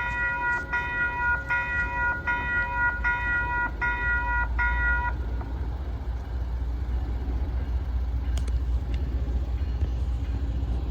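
Nathan K5HLA five-chime air horn on a freight locomotive sounding a rapid series of about seven short blasts, a little under a second apart, stopping about five seconds in. The low rumble of the passing freight train carries on after the horn stops.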